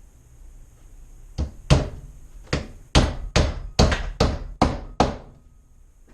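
Hammer driving a nail into a wooden nuc box: about nine sharp blows in quick, even succession.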